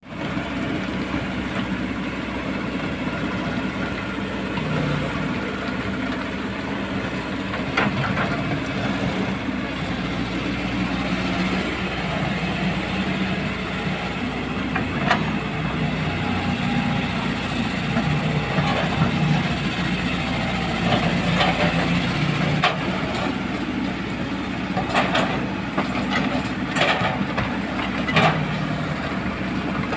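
Kobelco SK200 excavator's diesel engine running steadily under hydraulic load while it digs and swings, with scattered clanks and knocks of bucket and rock, several in quick succession near the end as a bucketload of earth and stones drops into a dump truck's bed.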